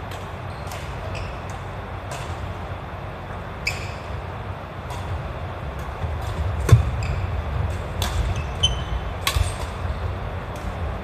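Badminton rally: rackets hitting the shuttlecock with sharp cracks every second or so, the loudest about seven seconds in, with brief shoe squeaks on the wooden floor, over a steady low hum.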